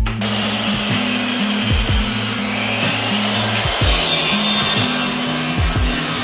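Dry rubbing and rasping on plywood as the edge of a cabinet panel is worked by hand. Background music with a low, stepping bass line plays under it, and a thin high whine sounds for the last couple of seconds.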